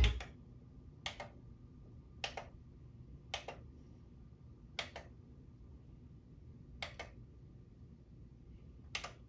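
Source-selector push buttons of a 1991 JVC RX-206 stereo receiver clicking as they are pressed one after another, about seven sharp clicks spaced one to two seconds apart. Between the clicks only a faint steady hum remains.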